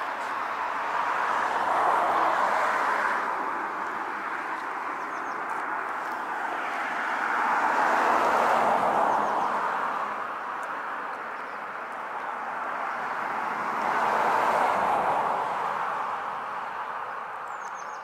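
Road traffic passing: three vehicles go by in turn, each a rushing hiss that swells and fades over several seconds.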